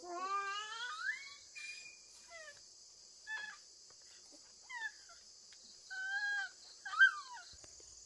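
Short pitched animal cries, a longer rising one at the start and about six brief ones after it, the loudest near the end, over a steady chorus of insects such as crickets.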